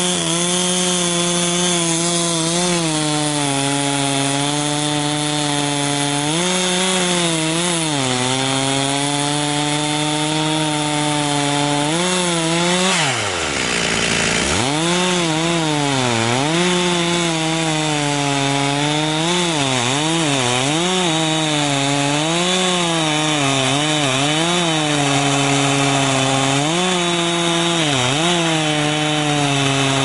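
Two-stroke petrol chainsaw cutting into a large tree stump, the engine pitch sagging under load and picking up again as the chain bites through the wood. About thirteen seconds in, the engine drops almost to idle and then revs back up.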